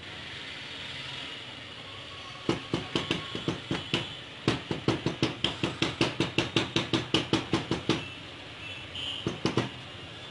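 A plastic laser toner cartridge is knocked repeatedly against the tabletop, knocking loose toner out of it. The sharp knocks come in a rapid run of about four a second, with a short break early on, and two more come near the end.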